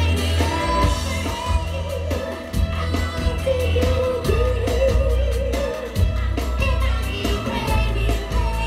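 Live pop band with a female singer performing through a PA system, heard from within the crowd: a sung melody over heavy bass and drums.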